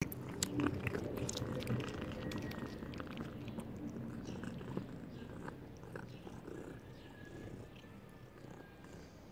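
Kitten chewing a piece of meat up close: quick wet clicks and smacks of its teeth and mouth, thickest in the first few seconds and thinning out later.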